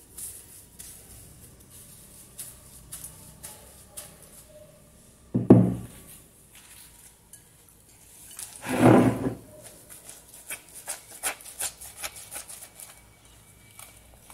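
Bar soap rubbed on a wet kitchen sponge, then the sponge dunked and squeezed over a glass bowl of water: two splashes, about five and nine seconds in, followed by quick wet squelching as the sponge is worked into lather.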